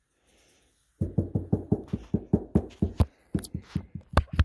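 A quick, uneven run of sharp plastic knocks and taps, several a second, starting about a second in, as the freshly tightened sunroof wind visor is pushed and wiggled against the roof to check that its clips hold it firm.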